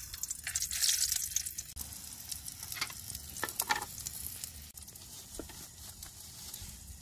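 Hotdogs sizzling and crackling in a frying pan on a gas camp stove, heaviest in the first couple of seconds, with a few louder pops about three and a half seconds in.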